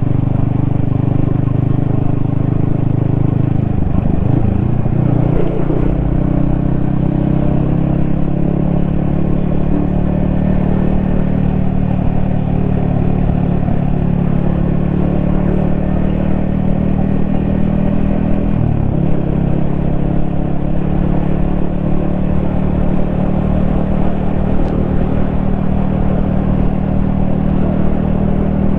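Yamaha XSR155's 155 cc single-cylinder four-stroke engine running under way on the road. The engine note dips and recovers twice, about four seconds in and again just before the twenty-second mark.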